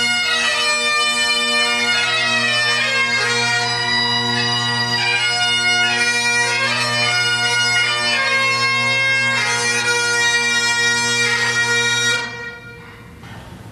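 Three Great Highland bagpipes playing a tune together, the chanter melody moving over their steady drones. The music cuts off near the end.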